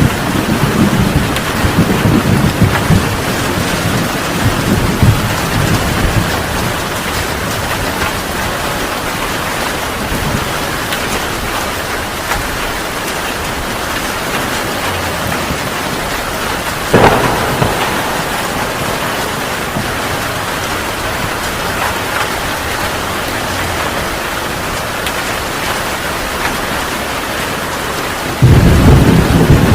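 Heavy rain pouring steadily through a thunderstorm. A low thunder rumble fades out over the first few seconds, a single sharp thunder crack comes about halfway through, and a loud low rumble of thunder starts near the end.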